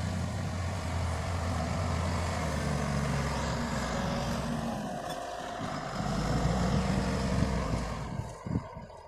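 Heavy diesel engine of a road-construction vehicle running steadily and loud. It eases off about five seconds in, picks up again, then fades away near the end.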